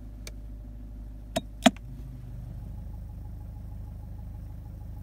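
Two sharp clicks close together about a second and a half in, from the Citroen DS4's electric parking brake switch being worked, over a steady low hum in the car.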